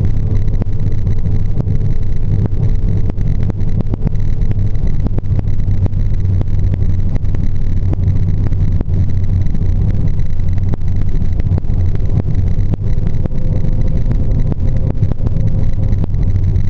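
Steady road and engine noise inside a car's cabin cruising on a motorway at about 120 km/h: a loud, even low rumble with frequent faint ticks.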